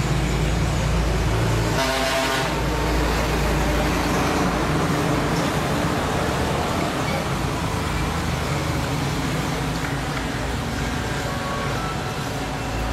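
Steady road traffic noise with a low rumble, and a vehicle horn tooting briefly about two seconds in.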